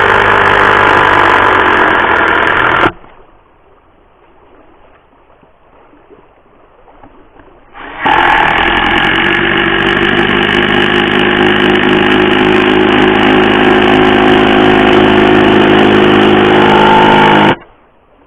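Red cordless driver motor running under heavy load, driving a long 6-inch TimberLOK screw through OSB into a spruce log. It runs steadily, stops about 3 seconds in, then starts again about 8 seconds in and runs for about nine and a half seconds before cutting off.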